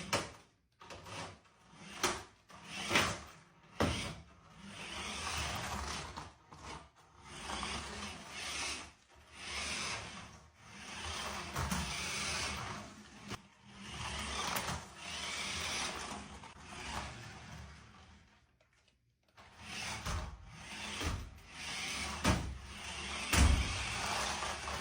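RC truck driven in short bursts, its motor whirring in repeated swells of a second or two. A few sharp knocks come in the first seconds and again near the end.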